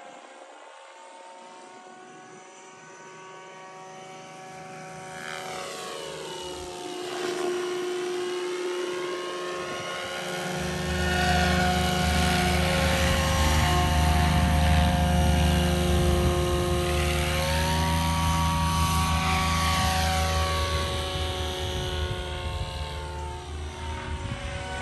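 Electric RC speed helicopter (Gaui R5 Speed, Scorpion 4530 motor on 12S) making high-speed passes: a steady whine from the rotors and motor, its pitch swooping down and back up each time it flies past. It is loudest in the middle. A low rumble joins at about ten seconds in.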